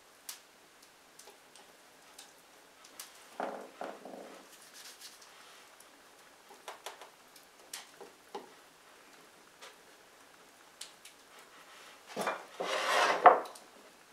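Hands working a very wet bread dough in a ceramic pie pan: scattered soft taps, pats and light clicks against the pan. A louder rubbing scrape comes about 12 seconds in, lasting about a second.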